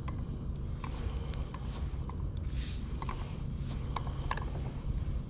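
Fishing reel being worked as a lure is retrieved: scattered small mechanical clicks and ticks over a steady low rumble.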